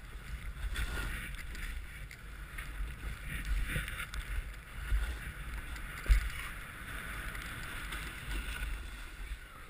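Snowboard sliding and carving through deep powder snow: a steady swishing hiss, with wind rumbling on the microphone and a couple of dull thumps around the middle, the sharpest about six seconds in.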